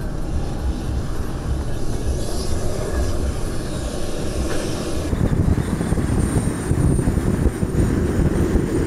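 Engine and road noise of an SUV driving in a motorcade, heard from inside the cabin. About five seconds in it turns louder and rougher.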